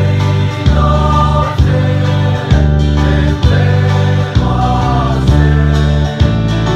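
A group of men singing a hymn together, with a steady beat about once a second.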